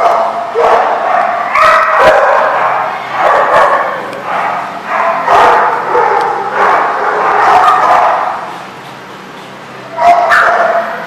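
Dogs barking and yipping during rough play, in repeated outbursts with a short lull about two-thirds through before the barking starts up again near the end.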